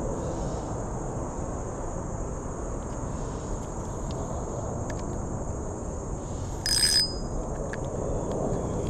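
Steady outdoor creek ambience: a low rush of moving water and a constant high drone of insects. About seven seconds in, a brief high ring, the loudest sound, lasts under half a second.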